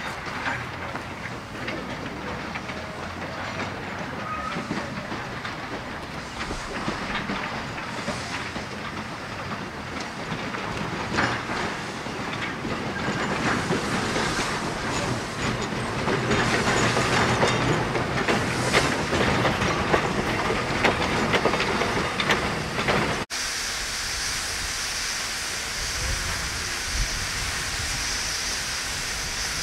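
Garratt steam locomotive moving slowly past, with steam hissing around its cylinders, irregular clanks and wheel clicks, growing louder to a peak about two-thirds through. It changes abruptly to a steady high-pitched steam hiss from a Garratt locomotive standing with steam escaping at its cylinders.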